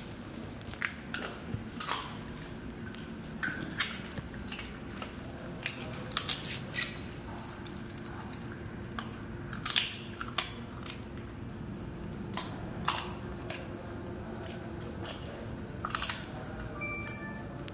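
A dog chewing a chicken leg, with irregular sharp crunches between quieter chewing.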